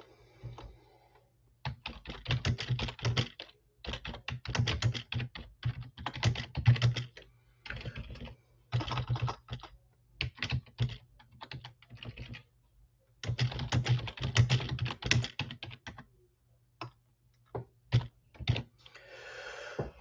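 Typing on a computer keyboard: bursts of rapid keystrokes lasting a second or two, separated by short pauses, thinning to a few single key presses near the end.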